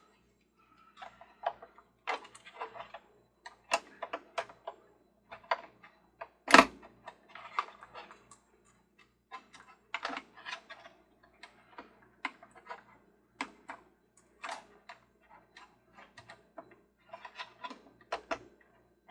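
Screwdriver and small parts clicking and scraping as screws are driven by hand into the feet of a plastic Ferris wheel base. The sound is a run of irregular clicks and short rattles, with one louder knock about six and a half seconds in.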